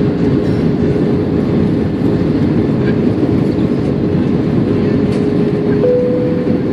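Steady cabin roar of an Airbus A320 airliner on approach, its engines and airflow heard from inside the cabin, with a faint steady hum running through it and a slightly higher hum briefly near the end.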